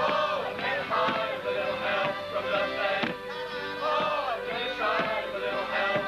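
Live English folk dance tune played on an accordion, with a steady beat.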